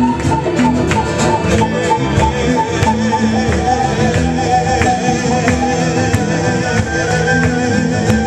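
Live rock band playing, with guitar and drums, in a stretch without sung words.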